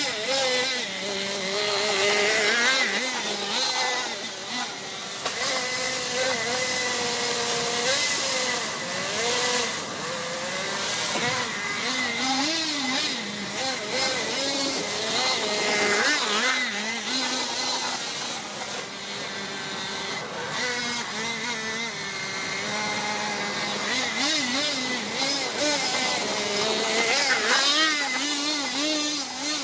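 O.S. two-stroke glow-fuel (nitro) engine of an HPI Nitro King RC monster truck running hard. Its pitch rises and falls again and again as the throttle is worked, and it passes close near the end.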